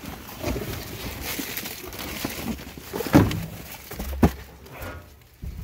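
Trash being rummaged through in a dumpster: plastic bags and cardboard boxes rustling and shifting, with two sharp knocks about three and four seconds in.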